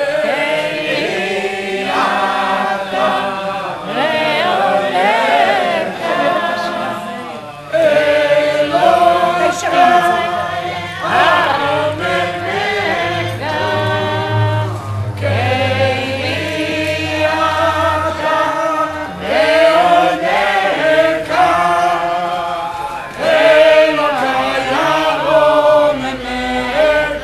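A group of voices singing a Chassidic melody (niggun) together, unaccompanied.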